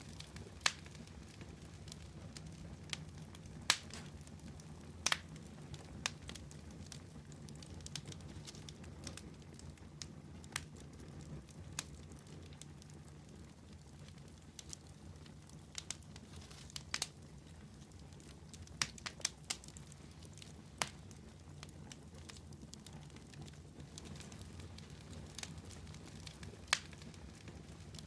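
Wood campfire burning, with sharp irregular crackles and pops over a low steady rumble.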